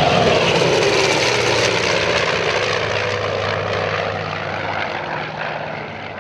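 Grumman F7F Tigercat's twin Pratt & Whitney R-2800 radial engines during a fly-by: loud at first, the pitch dropping as it passes, then fading as it flies away.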